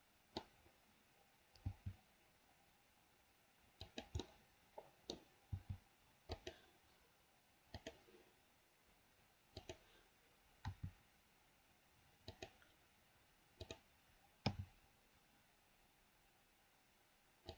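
Sparse computer mouse and keyboard clicks, many in quick pairs, separated by quiet gaps, over near-silent room tone.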